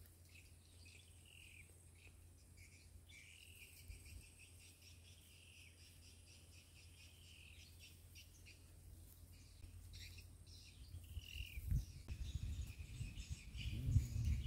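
Birds chirping in short calls over a faint steady high insect tone. Low rumbling thumps grow louder in the last few seconds.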